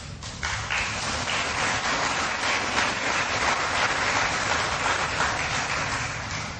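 Audience applauding. The clapping starts about half a second in and tapers off near the end.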